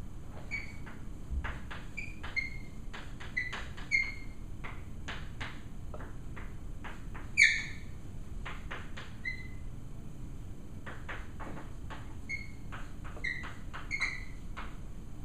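Chalk writing on a blackboard: a string of short taps and scrapes, broken by brief high chalk squeaks, the loudest one about halfway through.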